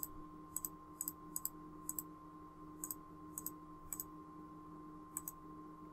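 Computer mouse clicks placing the points of a polygon on screen: about eight short, sharp clicks at uneven intervals, most heard as a quick press-and-release pair. A faint steady hum runs underneath.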